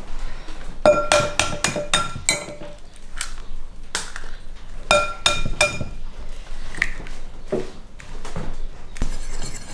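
Eggs knocked against the rim of a ceramic mixing bowl, the bowl ringing briefly with each knock: a quick run of about five taps, then a second run of about four a few seconds later as another egg is cracked.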